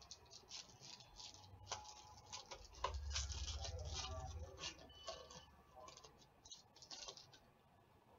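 Crinkling and crackling of a trading card pack's wrapper as hands tear it open, then the cards being slid out and handled: a quick run of small, crisp rustles.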